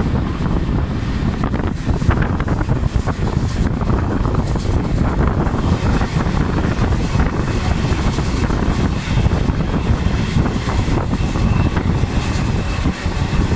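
Wind rushing and buffeting the microphone held out of a moving train's window, over the steady low rumble of the train running along the track.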